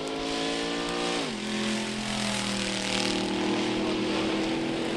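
Hot-rodded street roadster's engine running down a drag strip. Its pitch drops sharply a little over a second in, then holds roughly steady.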